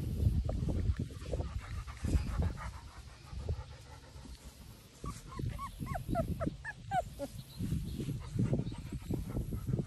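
Three-week-old Labrador puppies whimpering and squeaking, a quick run of short high-pitched calls about halfway through, over a low rumble.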